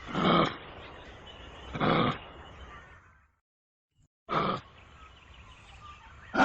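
Kangaroo calling: three short, loud calls roughly two seconds apart, with a second of silence before the third.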